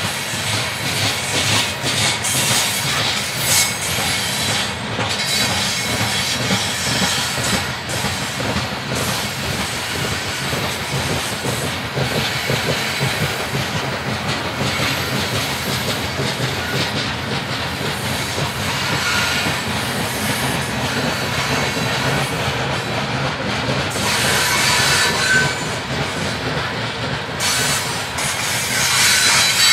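Loaded coal cars rolling past on steel wheels: a steady heavy rumble with clicking over the rail joints and a few brief wheel squeals in the second half.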